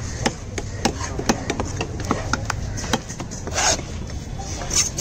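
Heavy fish-cutting knife chopping through fish pieces onto a wooden log chopping block: a quick, irregular run of sharp knocks, several a second, mostly in the first three seconds.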